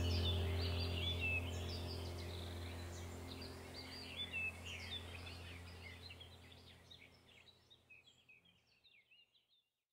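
Birds chirping over a low, steady hum, the whole track fading out smoothly to silence near the end.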